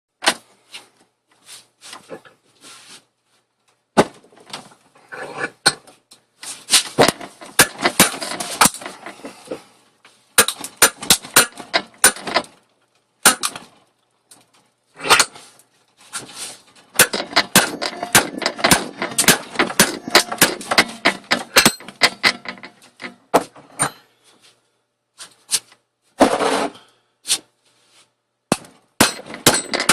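A BlackBerry phone being smashed: many sharp, hard blows in irregular clusters with short pauses between them, with crunching and rattling of breaking plastic and parts between the hits.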